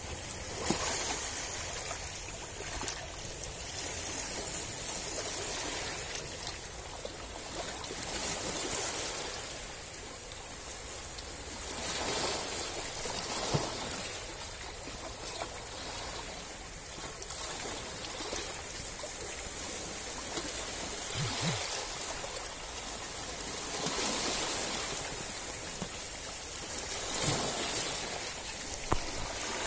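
Small sea waves lapping and washing around algae-covered rocks in shallow water. The wash swells and ebbs every few seconds, with small splashes.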